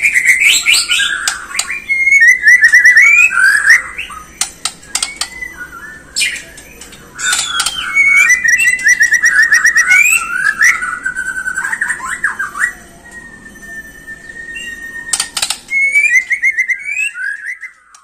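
White-rumped shama (Bornean murai batu) singing a varied run of whistled phrases and rapid trills, with a long level whistle past the middle. Sharp clicks are scattered through the song.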